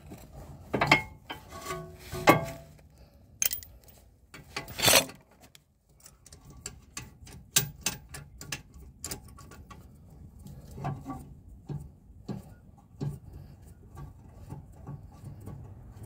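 Metal knocks, clicks and scrapes as a BMW 325i front brake caliper is worked back over new pads on the disc, tight going on because the piston still sticks out a little. The loudest scrape comes about five seconds in, followed by lighter scattered clicks and taps.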